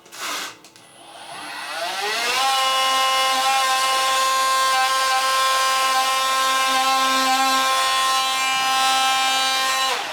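Electric power tool motor spinning up, its whine rising over about a second and a half, then running steadily at a high, even pitch with no load before cutting off near the end. A short knock comes just before it starts.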